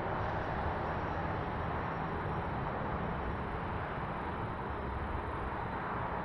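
Steady outdoor street noise with a low traffic rumble.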